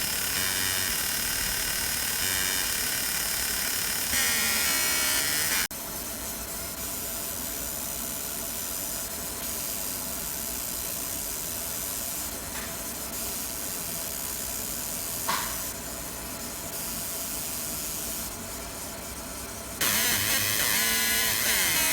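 50 W fiber laser marking machine deep-engraving metal: a steady hissing buzz that changes abruptly in level and texture a few times, dropping about six seconds in and rising again near the end.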